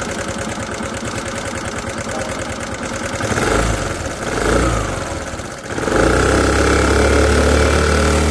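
Small scooter engine running with a fast, even beat. It is revved up briefly twice a few seconds in, then held louder and steadier near the end.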